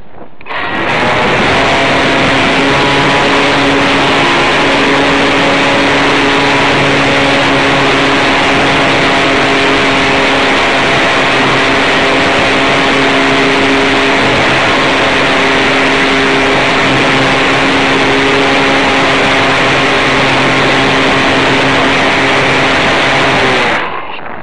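Electric motor and propeller of an Easy Pigeon model plane, heard from on board, running at steady full throttle with a constant hum under a loud rush of propeller wash and air. It starts about half a second in and cuts off suddenly near the end, leaving only wind noise.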